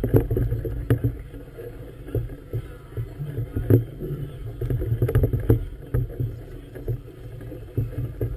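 Wind buffeting a boat-mounted camera and water slapping against the moored hull: a choppy low rumble with irregular knocks and slaps.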